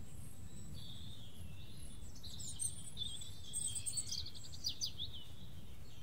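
Forest ambience of songbirds singing over a steady low background rumble. A flurry of high chirps and rapid trills comes from about two seconds in, ending with a few quick falling notes about a second before the end.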